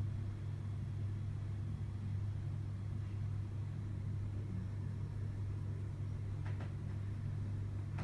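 Steady low hum, even in level, with a couple of faint light clicks about six and a half seconds in.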